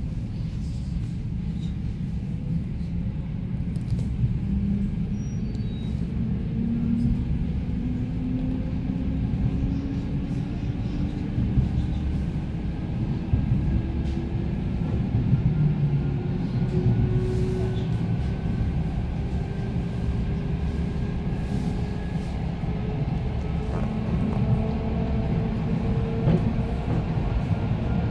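ЭТ2М electric multiple unit heard from inside the passenger carriage, gathering speed: a steady rumble of wheels on rails with a whine from the traction drive rising slowly in pitch.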